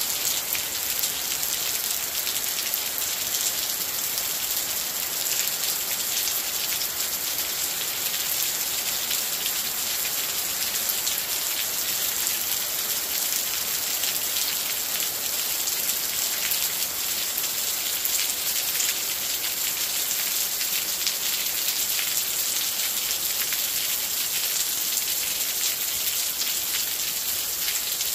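Steady heavy rain falling, an even hiss made of countless fine drop ticks with no let-up.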